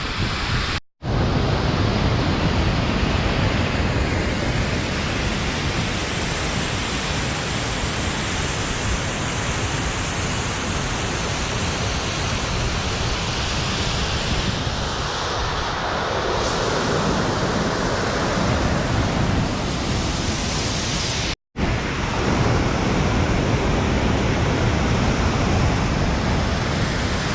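Steady rushing of a large waterfall, a dense even noise, cut by two brief dropouts about a second in and about three-quarters of the way through.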